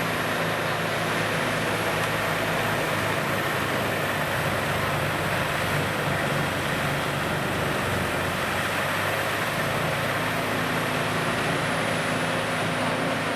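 CBI Magnumforce 5400 Multiflex grinder running steadily, a continuous heavy machine noise with a steady engine drone underneath.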